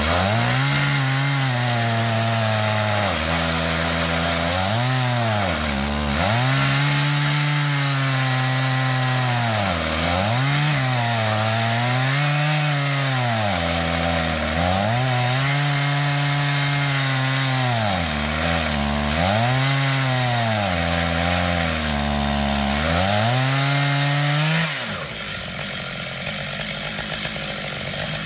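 Stihl MS880 chainsaw at full throttle, ripping a slab from a wide willow log on a chainsaw mill. The engine note repeatedly sags and recovers every second or two as the bar is fed through the wood. Near the end the engine note drops away and the sound gets quieter.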